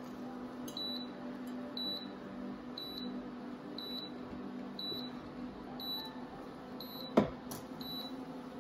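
Induction hob beeping about once a second, a short high beep each time, over a steady low hum. A sharp knock about seven seconds in is the loudest sound.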